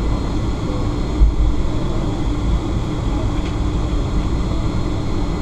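Cabin noise of a Boeing 757-300 taxiing: the jet engines at low power, a steady low rumble. One low thump about a second in.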